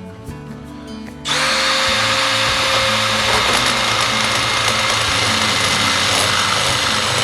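Power drill starting about a second in and running steadily under load, boring a bolt hole for the boat winch mount, with a steady whine over the cutting noise.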